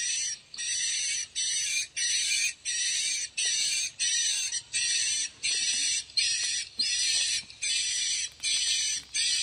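Recorded swiftlet lure calls played through horn tweeters from a swiftlet-house amplifier: a regular series of short, high chirps about one and a half per second, each carrying a thin whistling tone.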